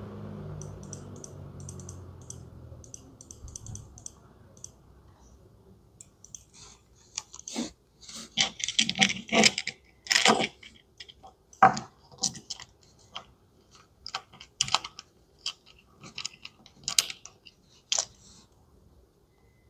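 Plastic dolls and small plastic toy accessories handled by gloved hands: irregular light clicks, taps and rustles, faint at first and much busier from about seven seconds in.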